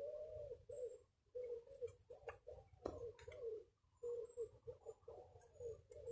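A bird cooing in a string of short low notes, like a pigeon, with a couple of sharp clicks about two and three seconds in.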